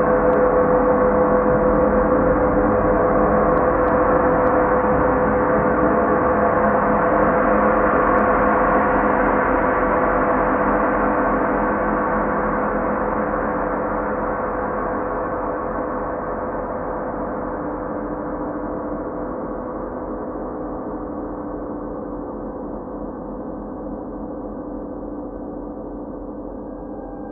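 A deep, gong-like ringing drone of several steady tones held together, slowly fading throughout.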